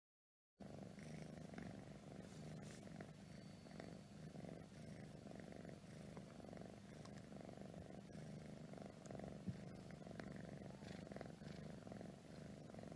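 A kitten purring steadily close up, starting about half a second in.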